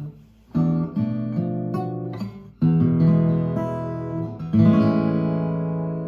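Eastman E20 OM-TC steel-string acoustic guitar played with the fingers: after a short pause, picked notes and chords start about half a second in, break off briefly near the middle, and a chord is left to ring out near the end. Recorded on an iPhone's built-in microphone.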